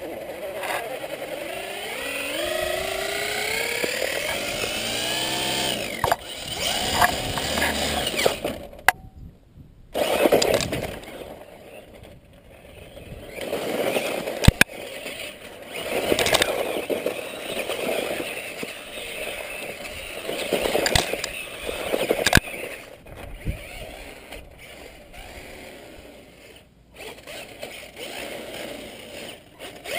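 Tamiya Subaru Brat electric RC truck driving over loose dirt: its motor and gears whine, rising in pitch as it speeds up and falling away, again and again. Sharp knocks come from bumps and landings. The sound cuts out briefly about nine seconds in.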